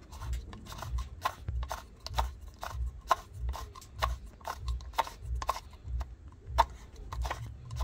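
Irregular plastic clicks and knocks, about two to three a second, from a washing machine's drain pump filter being handled at the pump housing.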